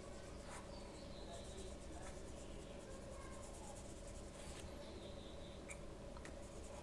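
Faint scratchy swishes of a thin paintbrush spreading thick green paint on paper, in short irregular strokes over a low steady hum.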